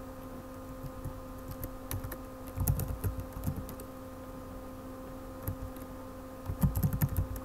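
Computer keyboard typing in two short bursts of key clicks, about two and a half seconds in and again near the end, over a steady hum.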